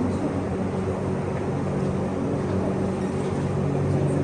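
Steady low mechanical hum with a constant pitch, running evenly without change, like a motor or engine.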